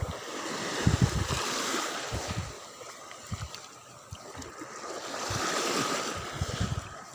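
Wind buffeting the microphone over the wash of sea waves. The noise swells and fades, with short low gusts now and then.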